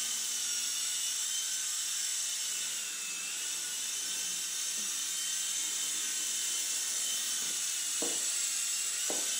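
Small remote-control toy helicopter hovering, its electric motor and rotor blades giving a steady high whine that dips briefly in pitch about three seconds in.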